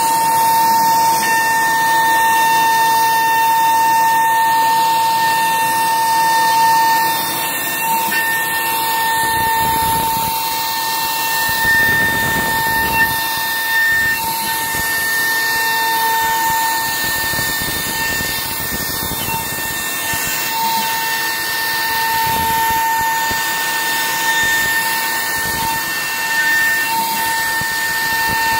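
A60L CNC router spindle running with a steady high whine as its bit mills a clear plastic sheet, over a steady hiss.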